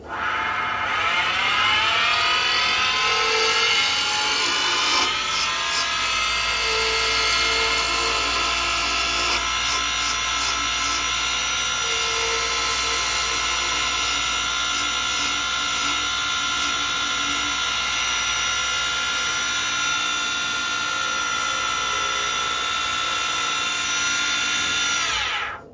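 Woodturning lathe motor starting up with a whine that rises in pitch for the first few seconds as it comes up to speed. It then runs steadily and winds down, its pitch falling, as it is switched off near the end.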